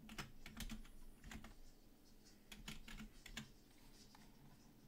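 Faint typing on a computer keyboard: several short runs of key clicks, as if a card code is being typed into a search.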